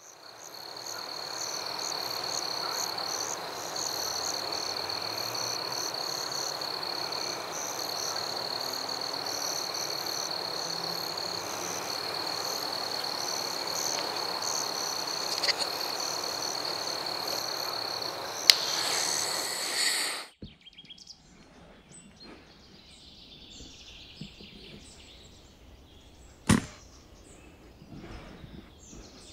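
Outdoor ambience: a steady high-pitched drone with a pulsing chirr above it over a noisy background, which cuts off suddenly about two-thirds of the way in. After that, quieter surroundings with bird chirps and one sharp crack.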